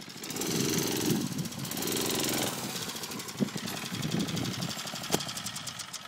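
Murray mini bike's small engine running under a rider, its pitch rising and falling twice as it revs, then running on more evenly and fading toward the end.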